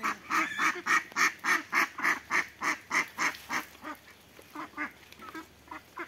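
Flock of domestic ducks quacking: a quick run of loud quacks, about three or four a second, for the first three and a half seconds, then fewer, fainter quacks.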